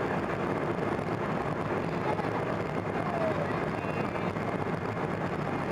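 Steady cabin noise of an Embraer 190 airliner, its two GE CF34 turbofans and air-conditioning running evenly at low power with a low hum.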